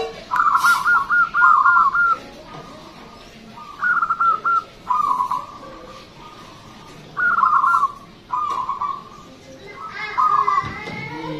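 Zebra dove (perkutut) singing loudly: repeated phrases of its coo, each a rapid run of notes ending in a steadier held note, about four or five times with short pauses between.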